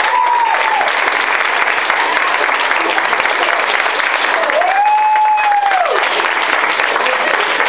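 Audience applauding, a dense steady clatter of many hands clapping. Voices call out over the clapping, briefly near the start and in one long held call about halfway through.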